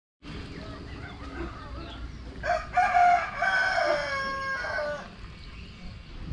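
A rooster crows once, a long call of about two and a half seconds starting a little over two seconds in, its last drawn-out note falling in pitch, over a faint background.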